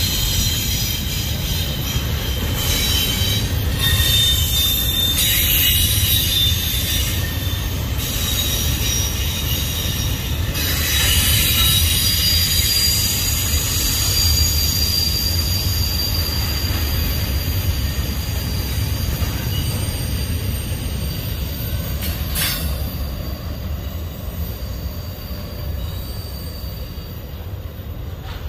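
Union Pacific double-stack intermodal freight cars rolling past: a steady low rumble of steel wheels on rail, with high-pitched wheel squeal over roughly the first twelve seconds. A single sharp clank comes about 22 seconds in, and the rumble fades slowly near the end.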